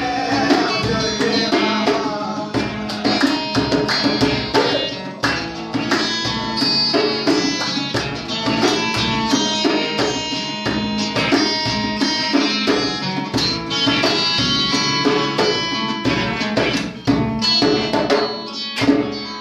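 Amazigh Ahidous folk music played on a djembe hand drum and two acoustic guitars, with hand clapping keeping a steady beat.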